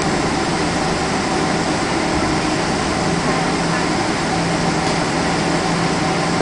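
Steady cabin noise inside a Boeing 777 on the ground before takeoff: engines at idle and the air-conditioning, an even rush with a low steady hum under it.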